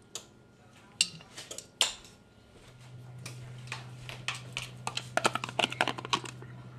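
Kitchen handling sounds: a few sharp knocks and clinks as a small glass syrup bottle is handled and set down on a wooden counter, then from about three seconds in a quick run of small plastic clicks and crackles as a plastic sour cream tub is picked up and opened.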